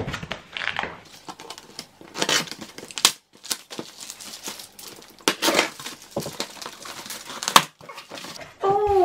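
Packing tape on a cardboard box being slit with a blade and ripped off, then the cardboard flaps pulled open: irregular scraping, tearing and crinkling of tape and cardboard.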